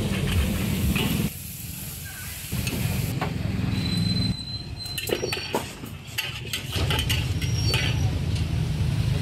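Noodles sizzling in a charcoal-fired wok while a metal ladle stirs, scrapes and clinks against the pan, with sharper clinks about five seconds in. A low steady rumble runs underneath, and the background changes abruptly several times.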